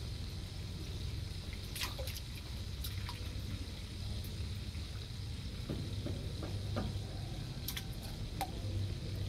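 Water splashing and dripping as a long-handled hand net is swept through a shrimp tank and lifted out, with a few short sharp splashes around two to three seconds in and again near the end. A steady low rumble runs underneath.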